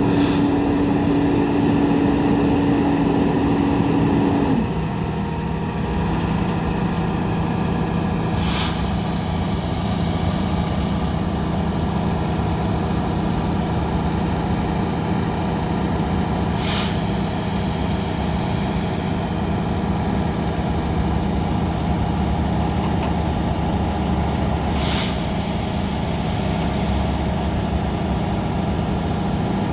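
Freightliner M2 concrete pump truck's engine running steadily. A steady whine over the engine stops about four and a half seconds in and the running note settles a little lower, and a short hiss comes about every eight seconds.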